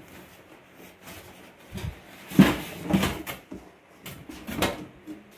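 An electric oven being lifted out of its cardboard box, the box and packing scraping and bumping in a few short knocks, the loudest about two and a half seconds in.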